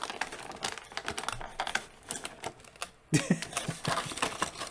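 Irregular clicks and taps of plastic action-figure packaging being handled and pried at, a little louder in the last second and a half.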